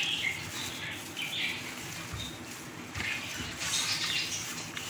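A hand in a plastic glove squishing and turning fried chicken pieces through a wet yogurt marinade in a steel tray, with irregular wet squelches and rustling. Birds chirp in the background.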